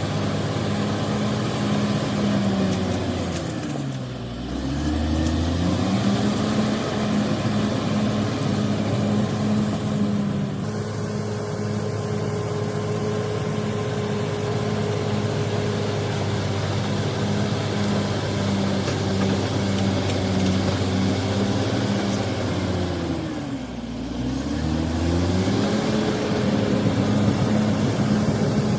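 Heavy diesel engine of earth-moving machinery running hard, with a faint high whine above it. Its speed drops sharply and climbs back up twice, about four seconds in and again near the end.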